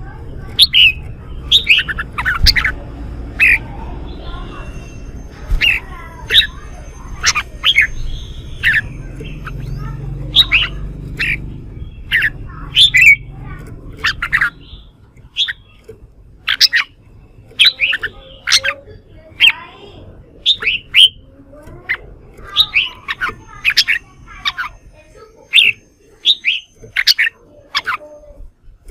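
Red-whiskered bulbuls calling fast and excitedly, the agitated fighting song of birds worked up to sing against rivals. Short sharp notes drop steeply in pitch, two or three a second, with a low rumble underneath through the first half.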